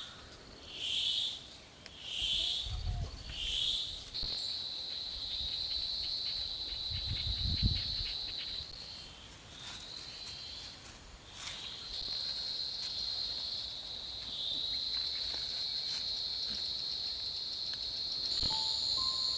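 Insects, crickets or cicadas, calling in a steady high-pitched drone. It opens with a few pulsed calls about once a second, then runs as an unbroken buzz with a short lull midway. A couple of dull low thumps sound about 3 and 7 seconds in.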